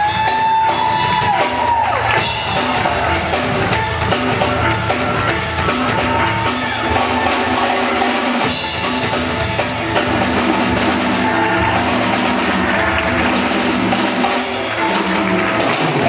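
Steel pan orchestra playing live: many pans sounding together over a steady drum beat.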